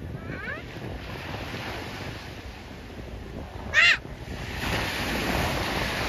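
A gull gives one short, loud call about four seconds in, with fainter calls just after the start, over the steady wash of surf on the shore. A wave breaks more loudly from about four and a half seconds on.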